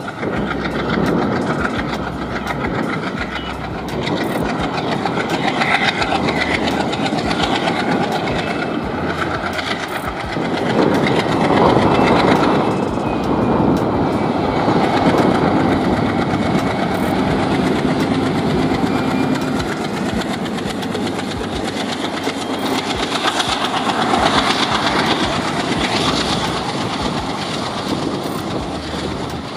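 ALCO diesel locomotive working hard as it hauls a passenger train past: a loud, steady engine sound that swells from about ten seconds in as the locomotive draws level. The thick black exhaust shows it is under heavy throttle. Its coaches then roll by.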